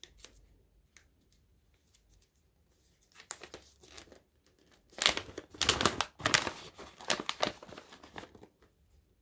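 Plastic dog-treat packet crinkling as it is pulled open by hand: a few scattered crackles at first, then a long run of loud crinkling from about five seconds in.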